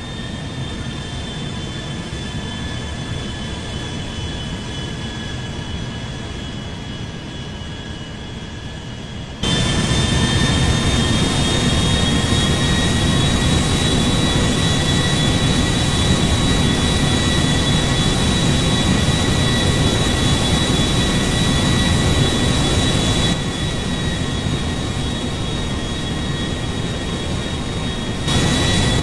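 Small turboprop airliner's engines running, a steady high whine over a broad rush of noise. The sound jumps louder about nine seconds in, drops back a little past twenty seconds in, and jumps again briefly near the end.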